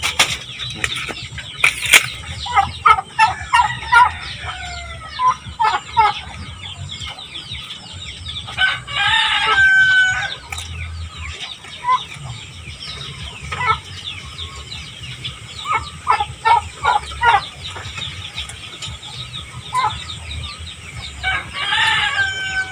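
Farm poultry calling: a run of short clucks and calls, with two longer crow-like calls, one about nine seconds in and one near the end. A sharp click about two seconds in.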